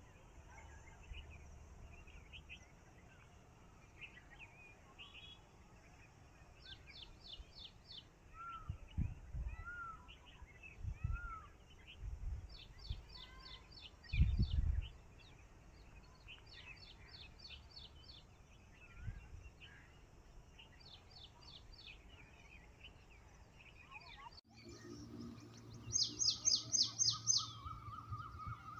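Several wild birds chirping and calling, with repeated quick runs of high, rapid notes among softer scattered chirps. A few low thumps come in the middle. Near the end a louder run of rapid high notes plays over a low steady hum.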